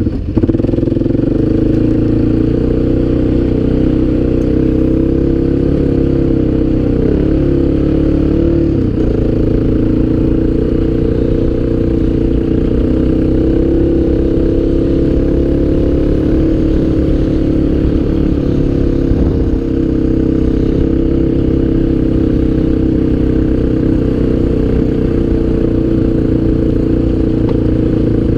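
ATV engine running steadily while riding, a loud continuous drone whose pitch shifts slightly with the throttle.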